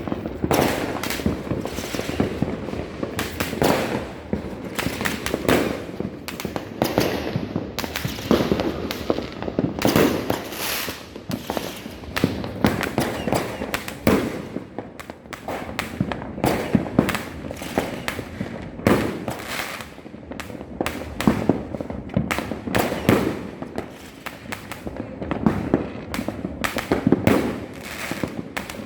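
Fireworks and firecrackers going off continuously: a dense string of overlapping bangs and crackles, with no pause.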